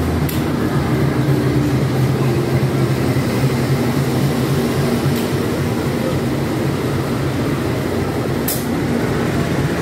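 Diesel-electric locomotive's engine running as it rolls past at close range at low speed, followed near the end by a passenger coach rumbling over the rails.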